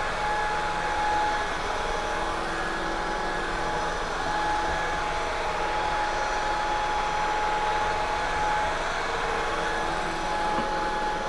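Shark Cordless Pet Pro stick vacuum running steadily over a bare floor: an even rushing of air with a motor whine that fades out for a few seconds at a time and returns.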